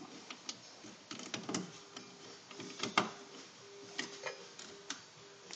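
Nut driver tightening switch nuts on a sheet-metal dryer housing: scattered small clicks and ticks of the tool, nut and metal, the sharpest about three seconds in.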